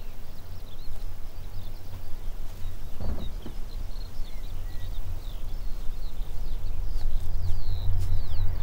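Small birds chirping over a field, with a low drone underneath that swells steadily louder.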